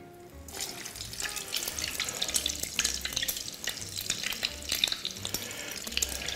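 A torrija, a slice of bread soaked in milk and coated in beaten egg, frying in hot oil: the oil starts sizzling about half a second in and keeps up a dense, steady crackle of small pops.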